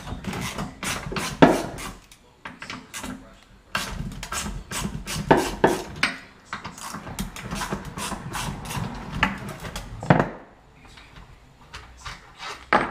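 Hand ratchet wrench clicking fast in three runs as small 10 mm bolts are backed out of a headlight motor assembly, with a few sharper knocks of metal parts.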